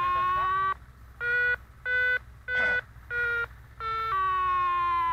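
Variometer tones from an RC glider's telemetry: a steady electronic tone breaks about a second in into five short, higher-pitched beeps, about one and a half a second, then returns to a steady tone that slides slightly lower. The beeping is the vario's climb signal, the glider rising in lift.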